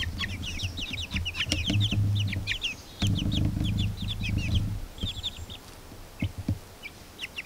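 Baby chicks peeping: many quick, high, down-slurred peeps, thick for the first few seconds and thinning out over the last two. A low rumble comes and goes underneath.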